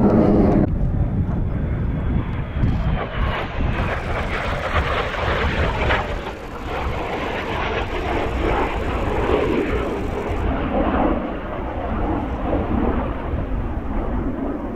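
Kawasaki T-4 jet trainer's twin turbofans roaring as it flies over, with a faint whine falling in pitch a few seconds in.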